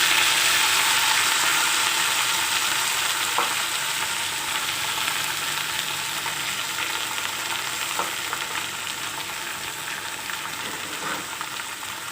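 Freshly washed, wet spinach sizzling in hot oil in a kadai, the sizzle loudest at first and slowly dying down as the leaves wilt. A few light scrapes of stirring come through.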